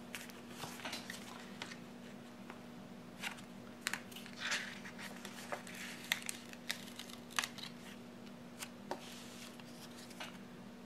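A paper sticker being peeled from its sticker-book sheet and handled, giving light paper rustling and a scatter of small clicks and crackles, over a faint steady hum.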